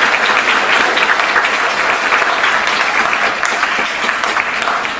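Audience applause, many hands clapping steadily.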